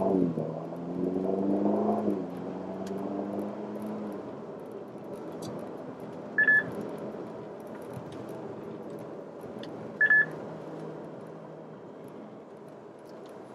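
Ferrari Roma's twin-turbo V8 heard from inside the cabin, its note rising over the first two seconds and then settling to a steady cruising hum. Two short, high electronic beeps about six and ten seconds in are the loudest sounds.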